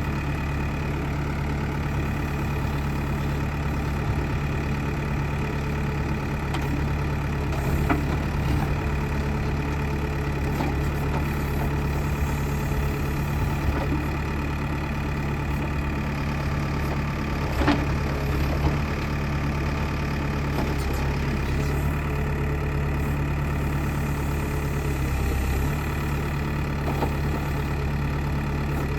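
Backhoe loader's diesel engine running steadily at idle, with a couple of short clanks.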